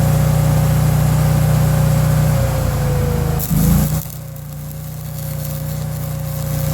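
Stick-welding arc crackling over a steadily running engine. About four seconds in the sound drops sharply as the arc stops, leaving the engine running more quietly.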